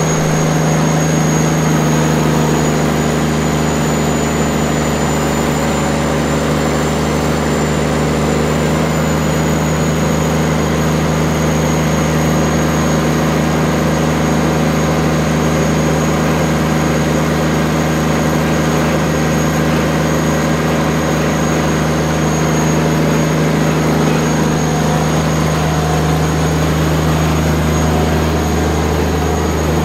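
Old excavator's diesel engine running steadily, with a thin high whine above it.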